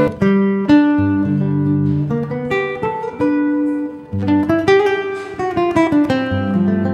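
Acoustic guitar played live, plucked single notes and bass notes mixed with strummed chords that ring and fade; there is a brief lull about four seconds in.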